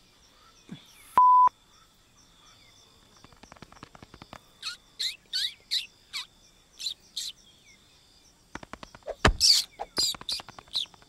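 Jungle ambience of bird chirps, with runs of quick chirps that fall in pitch. A little over a second in there is a short, loud beep at one steady pitch, and a low thump near the end.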